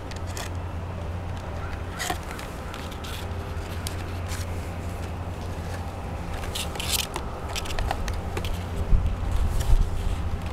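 A thin clear plastic water jug being handled, its sides crinkling and clicking now and then, with the sharpest crackles about two seconds in and around seven seconds. A steady low rumble runs underneath.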